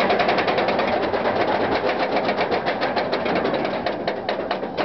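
Goliath steel roller coaster train climbing the chain lift hill. The lift chain clatters steadily and the anti-rollback dogs click rapidly over the ratchet. The clicks slow and spread out in the last second.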